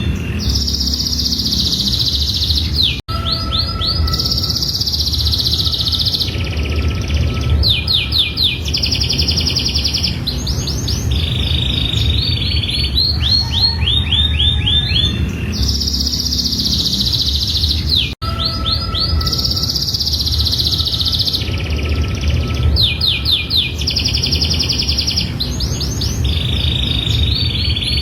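Domestic canary singing a long, continuous song of rapid trills and buzzing rolls, phrase after phrase with no pause. The song cuts out for an instant about three seconds in and again past the middle, and each time the same passage starts over.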